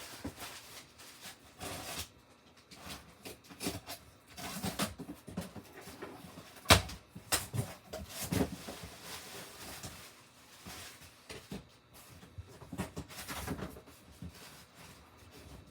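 Cardboard boxes and packaging being handled and opened, with irregular rustling and scraping and one sharp knock about seven seconds in.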